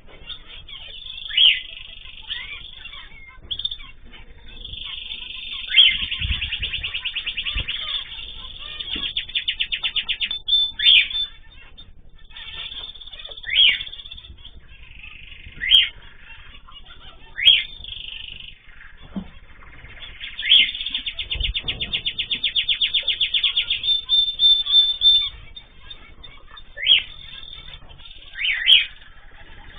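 Pet cage birds calling: sharp rising chirps every couple of seconds and two long, rapid trills, one starting about six seconds in and one about twenty seconds in, with a few soft low thumps among them.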